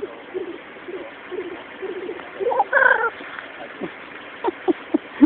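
Black grouse cock's low bubbling coo, short rolling notes repeated about twice a second. About two and a half seconds in comes a louder, higher call, followed by a run of short, sharp falling notes near the end.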